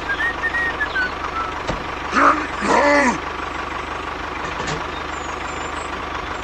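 A steady mechanical drone like a running engine, with a short voice-like call in two parts about two to three seconds in.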